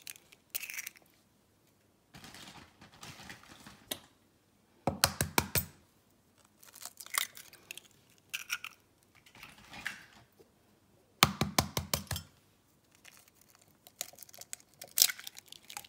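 Eggs being cracked open one after another: three quick runs of sharp taps and shell crackling, with softer handling noise in between.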